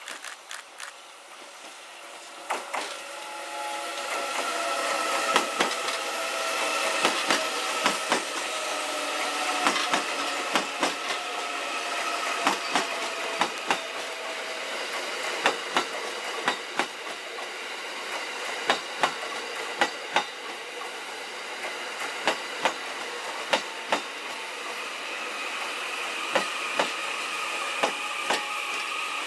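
E001 series TRAIN SUITE Shiki-shima passenger train rolling slowly past under electric power, wheels clicking over the rail joints again and again. The train grows louder over the first few seconds, and a whine falls slowly in pitch as it slows.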